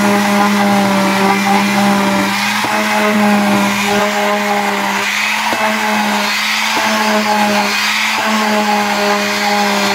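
Electric palm sander running with a steady hum, sanding the molded plastic pump housing to smooth off imperfections left by the mold.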